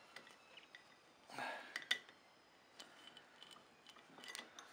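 Faint, scattered metallic clicks and light clinks as the cam timing chain is threaded out through the aluminium cylinder head of a Yamaha R125 engine while the head is lifted off the barrel.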